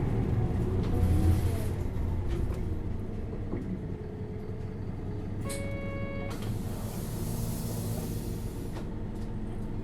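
Interior running sound of an Isuzu Erga LV290N1 city bus with its four-cylinder diesel engine, the engine sound dropping away over the first few seconds as the bus eases off. About five and a half seconds in a short electronic tone sounds, followed by a high hiss.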